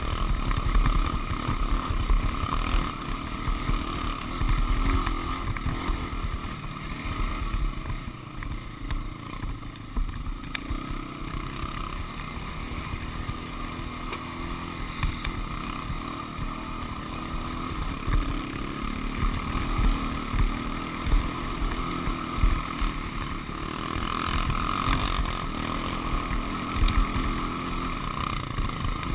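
Honda 400EX quad's single-cylinder four-stroke engine running while riding, its loudness rising and falling with the throttle over a rough grassy trail.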